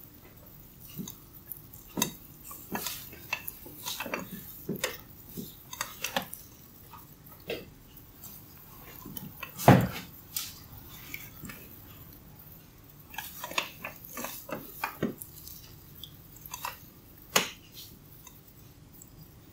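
Hair cracking: strands of hair wound around the fingers and pulled taut until they snap, giving irregular sharp crackles and pops, with one much louder crack about ten seconds in.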